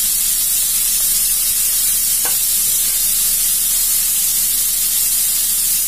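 Freshly added grated radish sizzling in hot oil in a kadai: a steady, even hiss.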